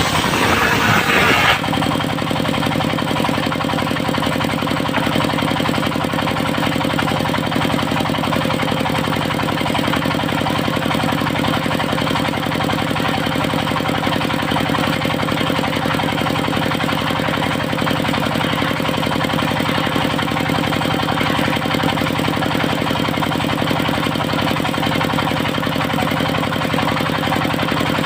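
Engine of a portable circular sawmill running steadily at an even speed, with a brief louder, noisier burst in the first second and a half.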